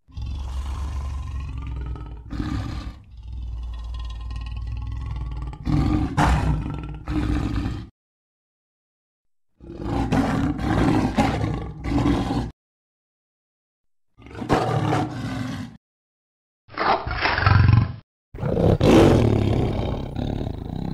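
A series of big-cat roars and growls used as sabre-toothed cat (Smilodon) sound effects: about six separate roars, each one to a few seconds long, spliced one after another with abrupt cuts to dead silence between them.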